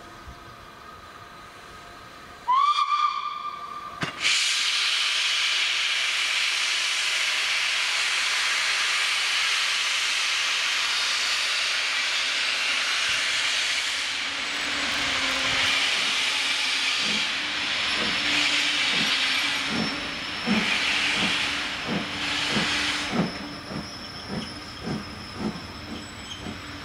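LNER Thompson B1 4-6-0 steam locomotive sounding one short whistle blast, then starting away. A loud steady hiss of steam from its open cylinder drain cocks runs for about ten seconds, then gives way to slow, even exhaust beats with the hiss coming in pulses.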